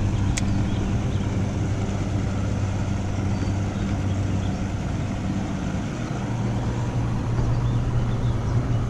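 An engine running steadily with a low hum, stepping slightly higher in pitch about six seconds in.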